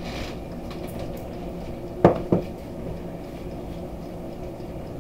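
Two quick sharp knocks about two seconds in, a third of a second apart, as the hot sauce bottle is put back down on the countertop, over a steady low hum.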